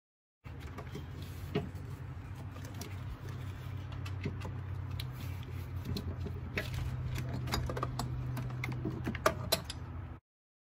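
Metal hand tools clicking and clinking against fittings in an engine bay, over a steady low hum; the sound is sped up.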